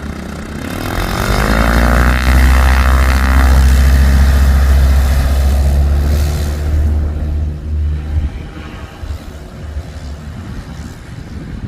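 Small propeller aircraft at takeoff power, the engine and propeller drone swelling as it comes past, loudest from about two to six seconds in, then fading away.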